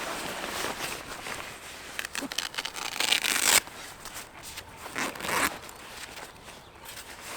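Backpack zipper being pulled open in short rasping runs. The longest and loudest comes about three seconds in, with another about five seconds in and fabric rustling between as the pack is rummaged for a camera lens.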